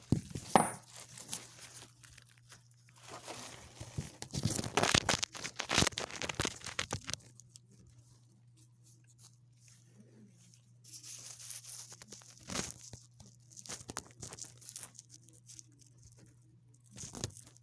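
Irregular rustling, scraping and crunching from handling close to a phone's microphone, in several bouts with pauses between, over a faint steady low hum.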